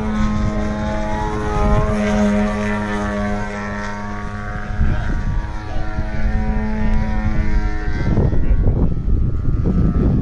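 Radio-controlled model aerobatic airplane's engine and propeller droning at a steady pitch as it flies overhead. About eight seconds in the drone fades under a rougher, noisy rush.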